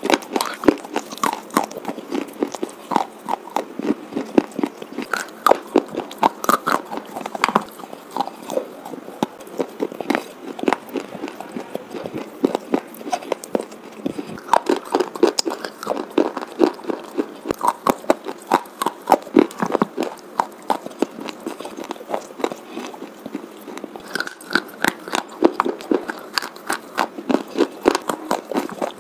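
White slate pencils being bitten and chewed: a fast, irregular run of sharp crunches, several a second.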